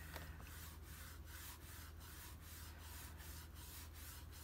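Small pastel applicator rubbing PanPastel onto cardstock in quick, even back-and-forth strokes, about three a second, faint and soft.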